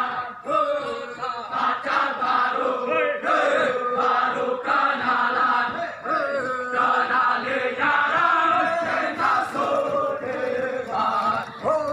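A group of young male soldiers chanting and singing a running cadence together in unison as they jog in formation.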